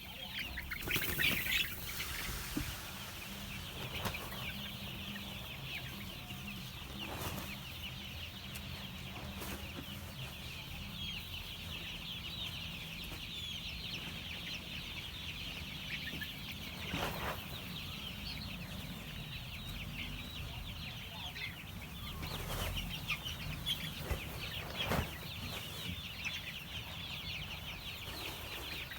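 A flock of one-month-old chicks peeping together in a dense, continuous chorus of short high chirps, with a few brief knocks or taps scattered through it and a low steady hum underneath.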